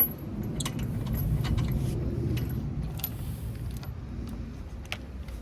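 Metal clinks and rattles of wheel bolts being handled and threaded in by hand, with scattered sharp clicks over a low rumble.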